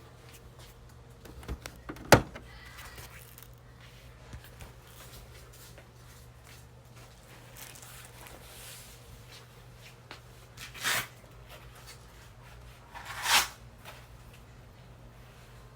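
Faint steady low hum with a sharp click about two seconds in, then two short scraping, rustling sounds, the second one louder, near the end.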